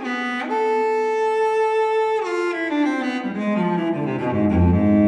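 Solo cello music: one long held note, then a phrase stepping downward into the instrument's low register near the end.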